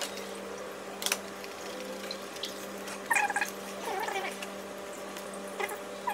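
A pet gives three short, high-pitched calls, each under half a second; the later two fall in pitch. A single sharp knock comes about a second in, over a steady low hum.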